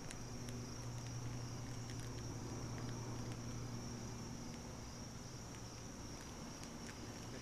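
Steady high-pitched insect chorus with a low steady hum beneath it and a few faint scattered clicks.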